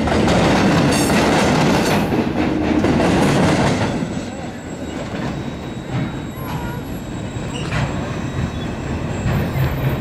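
Freight train wheels clattering over a rail crossing diamond as flatcars carrying trailers roll past, with a few sharp clacks. The noise stays loud for about four seconds, then drops off as the end of the train goes by.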